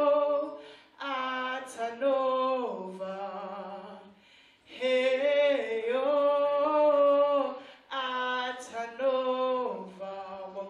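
A woman singing into a handheld microphone, in long held, melodic phrases with short breaks between them and a longer pause about four seconds in.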